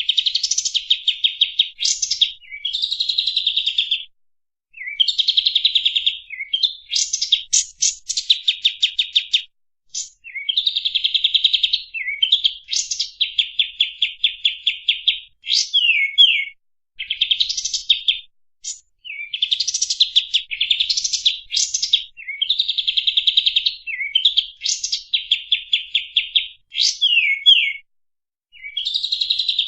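Kapas tembak songbird singing a fast, dense song: rapid trills of sharp notes in phrases of one to two seconds, broken by short pauses and a few quick down-slurred notes.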